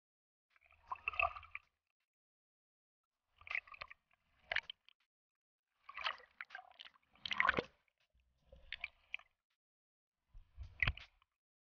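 Water sloshing and gurgling against a GoPro's waterproof housing as it bobs at the sea surface: a series of short, irregular splashes with silence between them.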